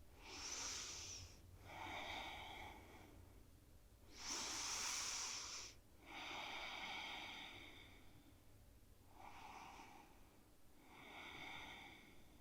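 Slow, faint breathing through the nose while holding a seated forward fold: three slow breaths, each a soft in-breath and out-breath.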